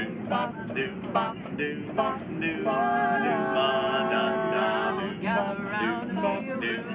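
Male barbershop quartet singing a cappella in close harmony, starting a spooky song. About three seconds in, the voices hold one long chord for about two seconds before moving on.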